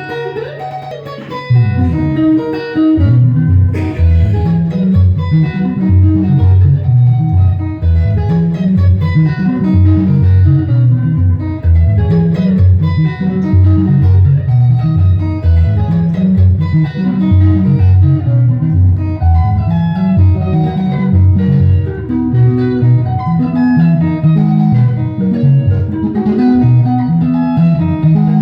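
Sungura band playing live at a sound check: interlocking electric guitar lines over a busy, bouncing bass guitar line. The full band comes in about a second and a half in.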